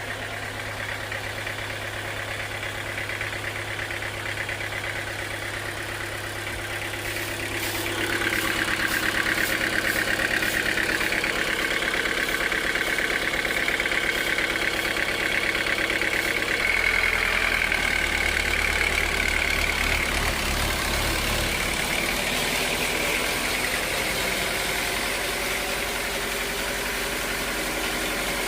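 Sawmill machinery running with a steady engine-like hum, getting louder and higher-pitched about eight seconds in, as when the saw goes into the log, with a shift in the low hum a little past halfway.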